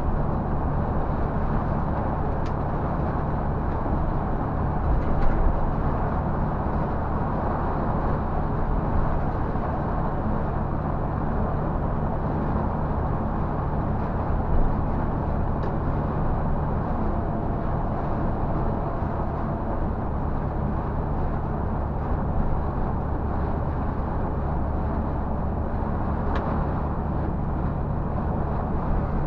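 Scania bus's diesel engine and tyre noise heard from the driver's cab, cruising steadily on the expressway: a constant low drone with a few faint ticks from the cab.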